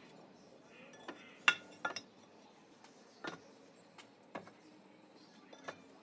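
Fired clay bricks being set down on top of a brick wall: a series of sharp clinks and knocks of brick on brick, at uneven intervals, the loudest about a second and a half in.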